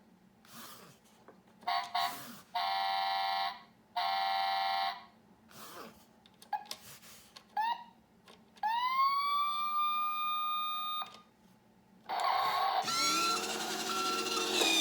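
A Road Rippers toy fire truck's electronic sound effects playing through its small speaker. It gives two horn blasts of about a second each, a few short chirps, and then a siren wail that rises and holds for a couple of seconds. Near the end comes a busier stretch with repeated short beeps.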